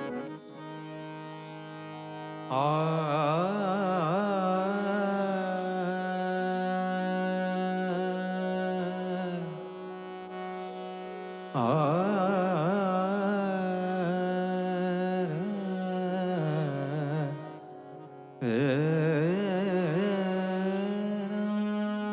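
Musical introduction to a Marathi devotional song (abhang): a steady drone with three long, wavering, heavily ornamented melodic phrases over it, each starting suddenly and louder than the drone.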